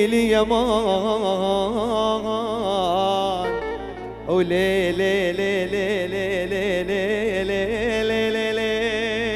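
A male singer performing a mawwal, a free-rhythm Middle Eastern vocal improvisation, sung on long ornamented held notes with heavy vibrato over sustained instrumental backing. The voice swoops up into its first phrase at the start, breaks off a little before halfway, and swoops up again into a second long phrase.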